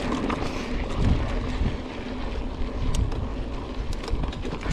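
Mountain bike rolling along a dirt trail: a steady rush of wind over the microphone and rumble from the tyres, with a few sharp clicks from the bike in the second half.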